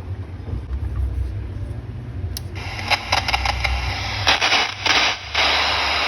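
Old radio's speaker giving a low hum, then from about two and a half seconds in loud static hiss with crackles and dropouts: the noisy volume control being demonstrated.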